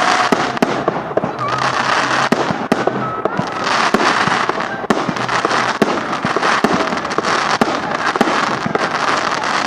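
Fireworks going off in a continuous barrage of bangs and crackling, with a few faint whistles rising and falling in pitch.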